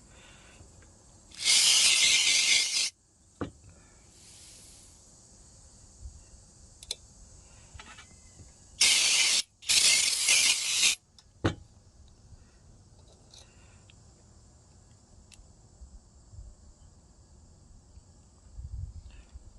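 Three short hissing blasts of pressurized spray cleaning out a lawnmower carburetor: one about a second and a half long near the start, then two close together about nine seconds in, with a few faint clicks of handling between them.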